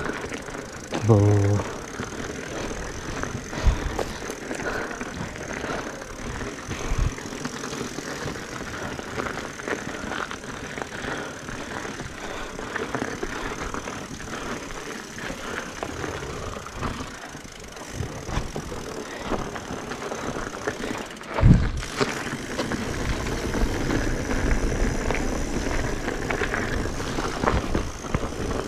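Riding noise from a mountain bike heard through a handlebar-mounted action camera: a steady rush of wind and tyres rolling over the road. A short pitched sound comes about a second in, and a sharp knock about 21 seconds in.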